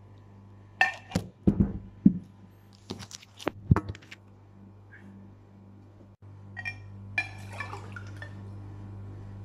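Glassware and bowls being handled and set down on a table: a handful of sharp knocks and clinks in the first four seconds, and a lighter clatter later, over a steady low hum.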